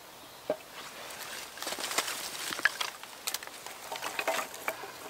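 A split log set down on a log stack with a knock about half a second in, then a bundle of dry twigs laid across the stack with a run of crackles and snaps of small sticks.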